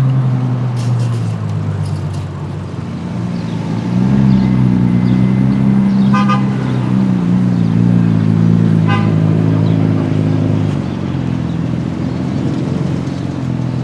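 Car engine running in street traffic, its note swelling about four seconds in and easing off near the end, with two short car-horn toots about six and nine seconds in.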